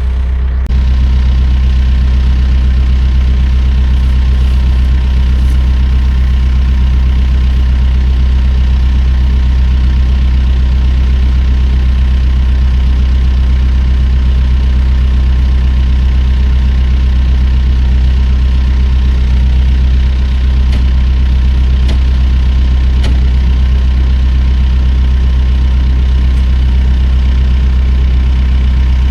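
Backhoe's diesel engine running at a steady speed, the engine note stepping up slightly just under a second in and then holding even.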